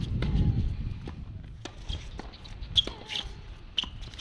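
Tennis rally: sharp pops of racket strikes and ball bounces about once a second, with low wind rumble on the microphone in the first second.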